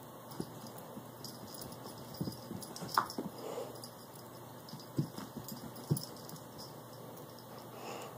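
A cat's paws thudding on carpet as it pounces after a laser dot: a few soft, short thumps, the sharpest about three seconds in.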